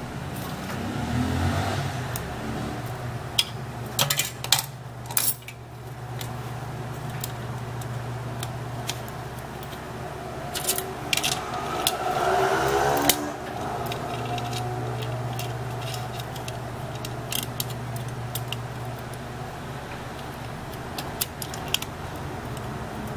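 Small clicks, taps and scraping of plastic and metal phone parts being handled and fitted together as a BLU Studio 5.0 smartphone is reassembled, with a louder rattling scrape about twelve seconds in. A steady low hum runs underneath.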